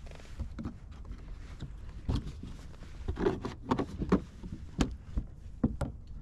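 Scattered knocks and clicks of fishing gear being handled on a plastic kayak, coming thickest in the second half.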